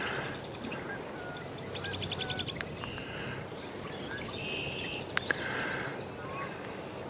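Several birds singing and calling in a marsh: a fast rattling trill about two seconds in, short held whistled notes and scattered chips over a steady background hiss.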